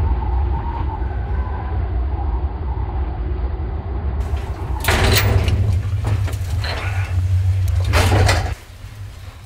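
Soundtrack of a projected short film: a deep steady rumble, joined from about five seconds in by several sharp, noisy swishes, then cutting off suddenly near the end.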